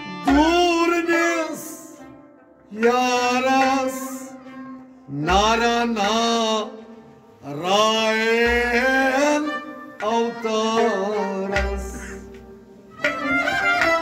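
Kashmiri folk music: a sliding, ornamented melody in phrases a few seconds long, over low drum strokes that fall every three to five seconds.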